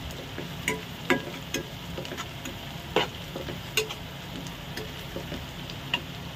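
Sliced onions and whole spices sizzling in oil in a non-stick frying pan, stirred with a slotted metal spatula that clicks and scrapes against the pan at irregular moments, about once a second.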